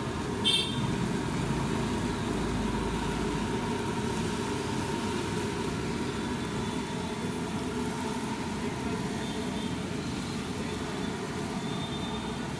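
Ghevar batter deep-frying in ghee inside ring moulds in a wide kadai: a steady bubbling sizzle. A brief high click about half a second in.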